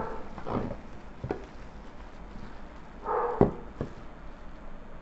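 Plastic-bagged vacuum cleaner extension tubes and nozzles being handled and set down, giving several short knocks. One short pitched call, like a small dog's yelp, comes about three seconds in.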